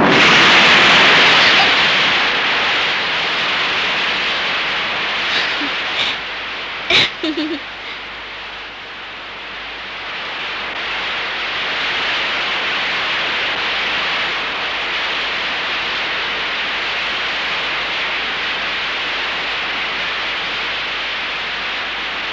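Heavy rain falling, a steady hiss. It is loudest at first and eases a little before settling, with a few short sharp cracks about six to seven seconds in.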